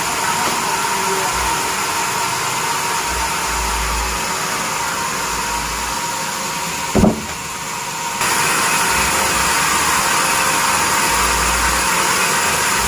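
Sawmill bandsaw machine running steadily with a constant hum. A short thump about seven seconds in; about a second later the noise turns suddenly louder and hissier.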